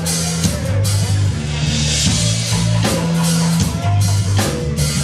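Live rock band playing through a club PA: bass notes, electric guitar and a drum kit with cymbal crashes.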